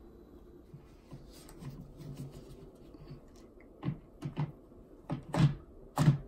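Hard plastic clicks and knocks as the Sun Joe electric pole chainsaw's cutting head is slid and clicked into place on its extension pole. About six sharp clicks come in the second half, the loudest near the end, after softer handling rustle.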